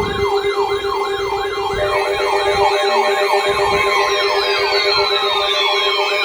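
Electronic siren in a fast yelp, rising and falling about three times a second over a steady tone. From about four seconds in, a second tone glides slowly down in pitch.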